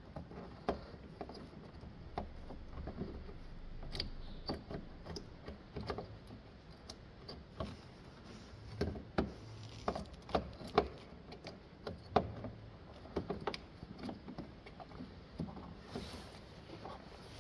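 Scattered light clicks, knocks and rattles of hand work on car parts during reassembly, as parts are worked into place around a pinched wiring harness.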